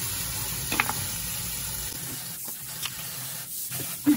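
Kitchen faucet spray running onto live crabs in a stainless steel sink, a steady hiss of water. A light click about a second in and a sharp knock near the end.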